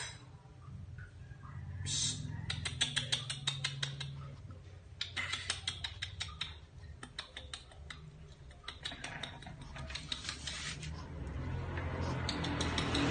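Dogs' toenails clicking rapidly on a tiled floor in several quick runs of taps as they scamper and play, over a low hum, with a rustling rise near the end.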